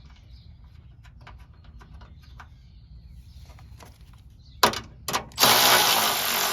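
Light clicks of metal parts being handled, then a cordless ratchet spinning a bolt: two short blips followed by a run of about a second near the end, tightening the bolt on a hood strut bracket.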